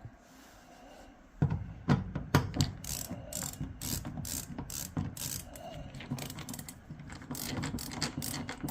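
Ratcheting screwdriver clicking quickly and unevenly as it drives screws into a dryer panel, starting about a second and a half in.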